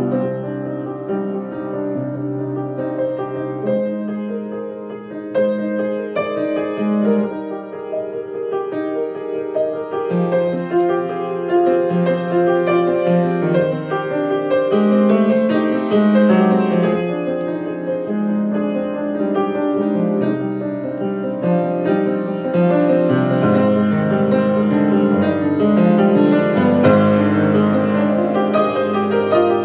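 Yamaha piano played four hands: a melody over a steady bass line, growing fuller and louder from about a third of the way in.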